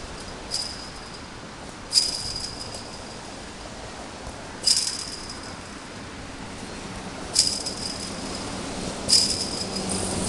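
A chain-link fence jangling as it is kicked: five sharp metallic hits, each ringing briefly, a couple of seconds apart. Near the end a passing truck's low engine hum comes in.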